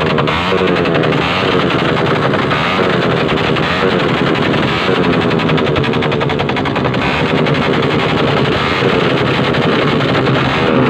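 Loud vehicle engines revving, their pitch rising and falling repeatedly, with a rapid stutter of exhaust pulses throughout.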